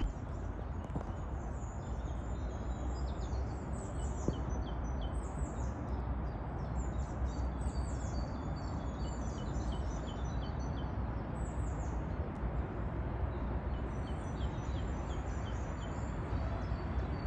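Small birds chirping and singing in quick, repeated short notes over a steady low rumble and hiss of outdoor background noise.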